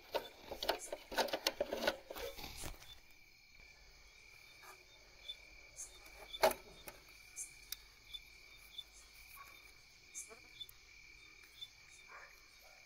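Crickets trilling steadily in a high tone. Over them, a motor starter's contactor is handled and worked loose from its box: a cluster of clicks and rattles in the first three seconds, then scattered sharp clicks, the loudest about six and a half seconds in.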